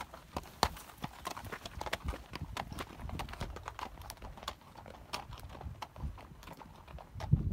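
Mule hooves clip-clopping on a rocky dirt trail, irregular knocks and scuffs as a mule train walks past and on ahead. A louder low thump comes near the end.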